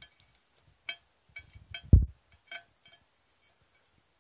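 Light metallic clinks of small steel valve parts and a plug being worked in and out of the valve body of a Mercedes 722.6 automatic transmission: about eight short taps with a brief ring. There is one dull thump about two seconds in.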